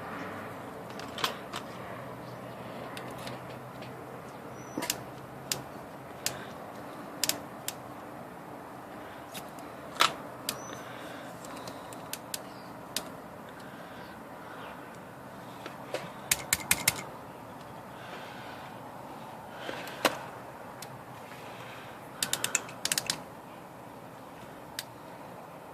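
Sharp clicks and clacks from an IBM Selectric typewriter's cycle mechanism being turned over by hand after a cycle clutch rebuild: scattered single clicks, with two quick runs of several clicks about two-thirds of the way through and near the end. The cycle is binding, later traced to a hang-up on the clutch trigger.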